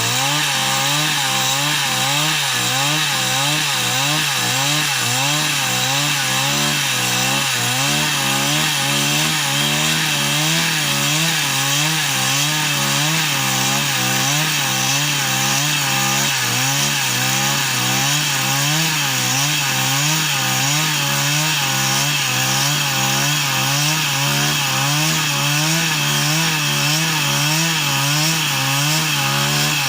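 A machine's engine running steadily under constant load, its pitch wavering up and down in a regular rhythm about twice a second.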